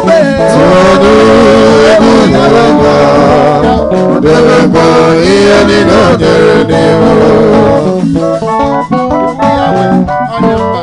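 Gospel praise music: a man singing into a microphone over a live band with electric guitar and organ. The voice stops about eight seconds in and the band plays on.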